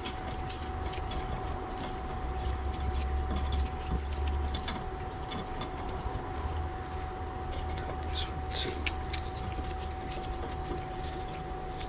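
Scattered light clicks and taps of tools and brake parts being handled, over a steady low rumble and a constant mid-pitched hum.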